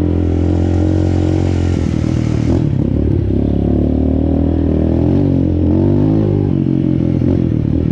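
Motorcycle engine running steadily while riding, its pitch dipping and rising slightly about five to six seconds in. A hiss over the engine cuts off suddenly about two and a half seconds in.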